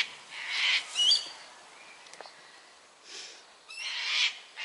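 Hands rummaging through loose potting soil, giving a few short rustling scrapes. A bird gives a short rising chirp about a second in and another brief call near the end.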